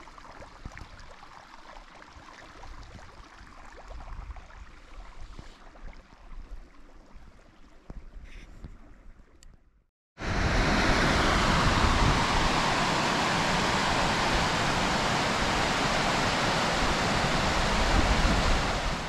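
Faint outdoor noise for about ten seconds, then after a sudden cut a loud, steady rush of fast-flowing water, a mountain creek or cascade close to the microphone.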